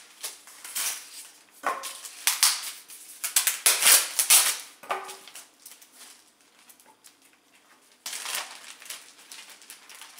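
Paper and plastic packaging rustling and crinkling in irregular bursts as instruction manuals are handled and unpacked, with a quieter stretch of about two seconds past the middle.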